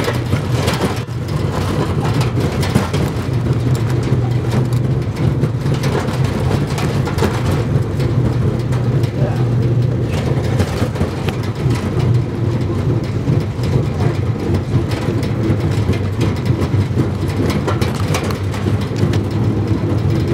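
Motorcycle truck's engine running steadily on the move, heard from the open cargo bed, with frequent knocks and rattles from the bed.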